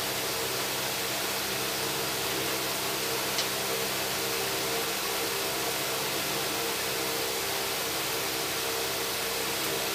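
Electric fan running steadily: an even rush of air with a low motor hum, and one faint tick about three and a half seconds in.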